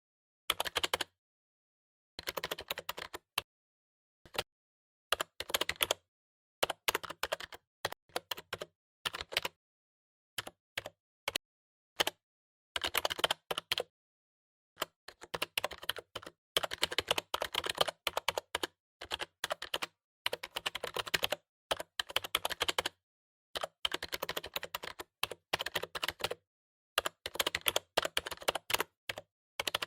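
Typing on a computer keyboard: rapid key clicks in bursts of a second or two, separated by short pauses.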